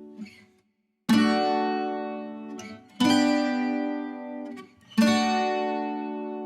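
Background music: acoustic guitar chords, three strums about two seconds apart, each left to ring and fade.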